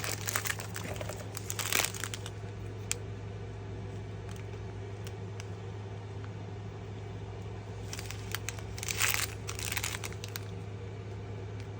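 Plastic packaging crinkling as it is handled, in two spells: during the first couple of seconds and again about eight to ten seconds in. A steady low hum runs underneath.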